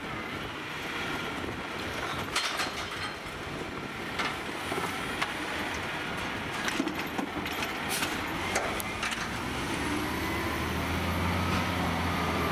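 Heil Durapack automated side-loader garbage truck running at the curb, with several sharp metallic clunks, then its engine rising as the truck pulls away near the end.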